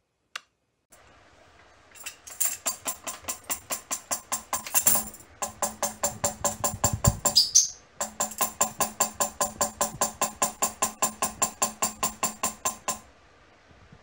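A wooden hand tambourine struck over and over by a cockatiel's beak, its metal jingles rattling at a quick, even pace of about four strikes a second, with two short breaks.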